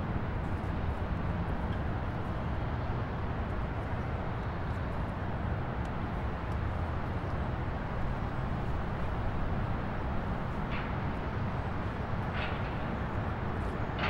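Car driving: a steady low road and engine rumble, with a few brief high-pitched sounds in the last four seconds.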